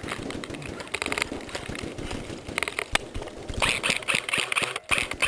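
Airsoft electric guns firing short full-auto bursts of rapid clicks, the nearest a Snow Wolf Thompson M1A1 electric rifle with its motor and gearbox cycling. Three bursts: about a second in, near three seconds, and a longer, denser one in the second half.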